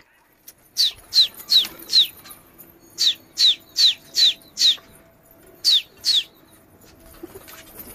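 A small animal's high, sharp chirping calls, each slurred downward, repeated about two to three a second in runs of four, then five, then two.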